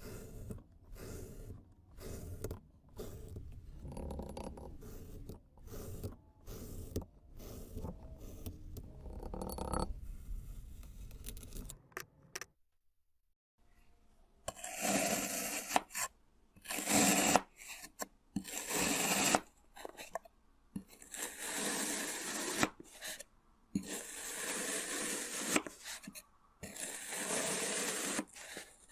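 Kinetic sand being cut, pressed and crumbled in separate short strokes, grainy scraping and crunching with pauses between. The strokes are dull and soft at first, then, after a brief silence near the middle, crisper and louder with a sharp, hissing crunch.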